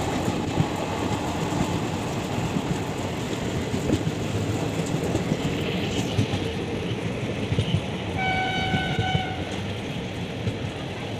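Passenger train running, heard from a coach window: steady rumble with wheels clattering over the rail joints. About eight seconds in, a train horn sounds once for about a second.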